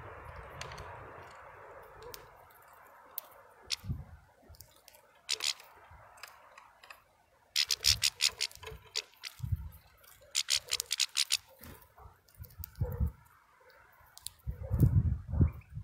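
Bursts of rapid high clicking and scratching, with a few short low thumps, as a European goldfinch rummages and pecks in a pile of sunflower seeds on a wooden board close to the microphone.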